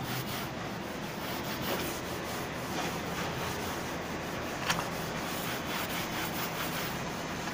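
A cloth rubbed back and forth over a glued red thesis cover, a steady scratchy rubbing as the cover is pressed down onto the pasteboard, with one small tick just past halfway.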